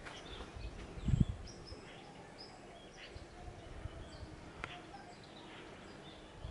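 Faint outdoor ambience with scattered short bird chirps, and a low thump about a second in.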